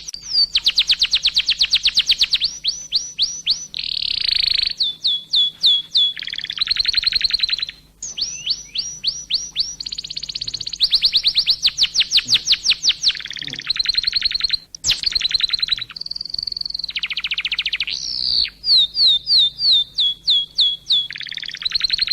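Caged songbird calling in long runs of fast, downward-sweeping chirps, several a second, broken by short pauses.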